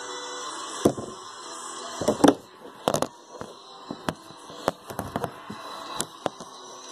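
Handling noise from a phone camera being picked up and moved about on a plastic tabletop: an irregular string of knocks and clicks, loudest about two seconds in. TV sound plays faintly underneath.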